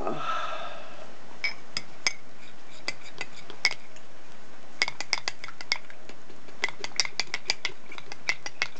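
A metal spoon stirring powdered drink mix into water in a glass mug, clinking against the glass in irregular runs of quick taps that grow busier about halfway through.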